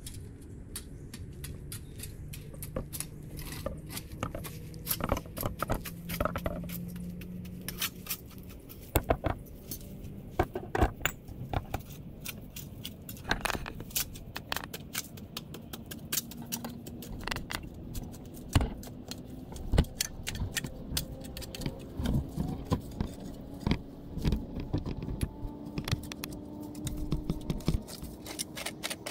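Irregular clinks and knocks of hard objects, many to the second, over a faint low hum that rises slowly in pitch.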